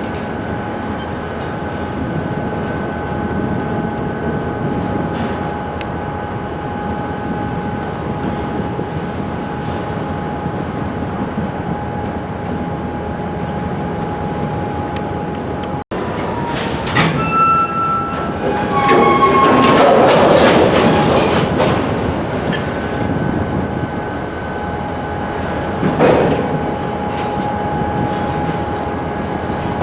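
Freight cars rolling through a rail yard: a steady rumble with a held, high wheel-squeal tone. A little past the middle it grows louder, with shifting squeals and clatter. A short bang comes near the end.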